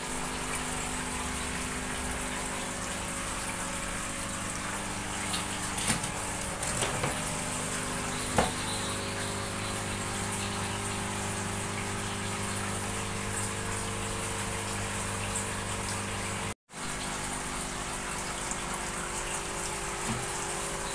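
Aquarium filtration pumps humming steadily under a continuous rush and trickle of circulating water. A few light knocks come between about five and eight seconds in.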